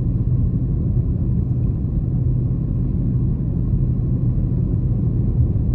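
Jeep on BF Goodrich all-terrain tyres driving slowly on a snow-covered road: a steady low rumble of engine and tyre noise.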